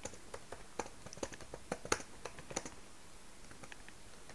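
Typing on a computer keyboard: a quick, irregular run of key clicks that thins out after about three seconds.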